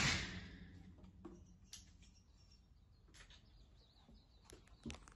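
The echoing tail of a .45-calibre black powder pistol shot, dying away over about a second under a concrete-block range shelter. After it come a few faint clicks and faint bird chirps.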